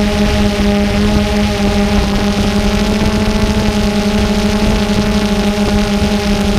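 Multirotor camera drone's motors and propellers humming at one steady pitch, with a low rumble from wind on its microphone.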